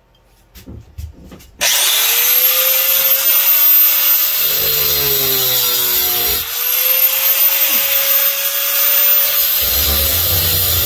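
Angle grinder switched on about a second and a half in, its whine rising to full speed, then cutting into a brass pressure relief valve held in a vise. The motor's pitch sinks as the disc bites into the brass, recovers briefly around six seconds in, and sinks again near the end.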